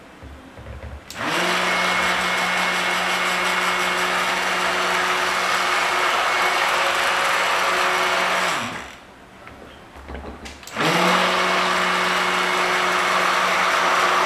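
Handheld electric stick blender running in a bowl of soap batter, in two runs. It spins up about a second in, runs steadily for about seven seconds and winds down. It starts again a couple of seconds later and runs on. It is stick-blending lye and oils with paprika for cold-process soap, bringing the batter toward trace.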